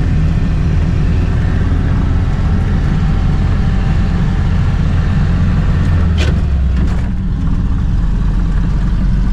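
UAZ off-road vehicle driving with its engine running steadily, pulling a broken all-terrain vehicle on a tow strap. There is one brief clunk about six seconds in.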